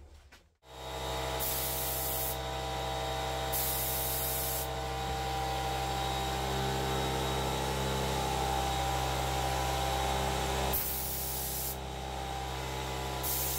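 Compressed-air spray gun hissing in several short bursts of about a second each as primer is sprayed. Under it, a small, underpowered air compressor runs steadily as a hum with many tones.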